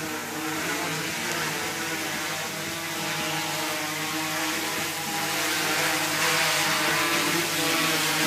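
DJI Inspire 1 quadcopter's propellers whirring in flight, a steady multi-tone buzz that grows louder as the drone comes closer.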